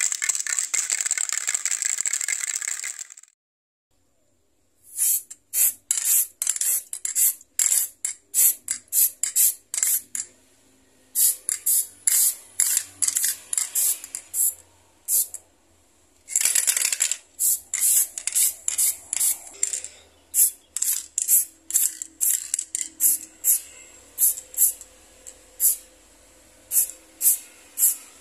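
A steady sound effect under the title card for about three seconds, then after a brief silence a spray can hissing in many short spurts, with a few longer sprays, spray-painting a small die-cast model car body.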